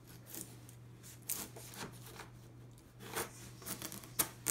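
A large chef's knife cutting a half watermelon into quarters: a few short, faint cutting strokes as the blade goes through the flesh and rind.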